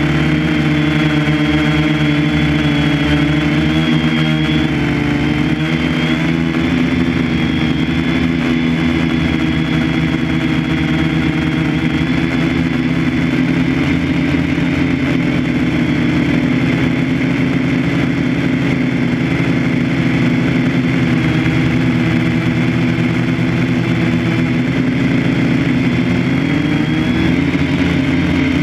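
A loud, steady machine hum with a constant pitch and a thin high whine over it, unchanged throughout.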